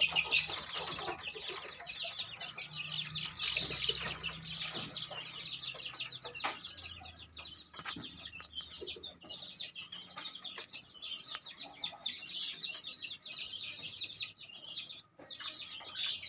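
Chickens clucking amid a steady, dense chatter of high bird chirps, with a few scattered sharp clicks or knocks.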